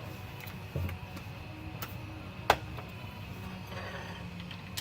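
A few scattered light clicks and a soft knock, tools and fittings being handled against the car's underside, the sharpest click about halfway through.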